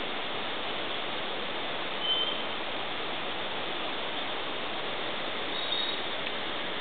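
Steady rush of flowing river water. Brief high chirps, likely from a small bird, come about two seconds in and again near the end.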